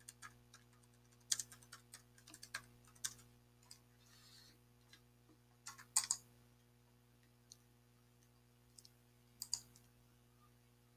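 Computer keyboard typing: scattered keystrokes through the first three seconds, then a few isolated clicks from the keys and mouse further on. A faint steady electrical hum sits underneath.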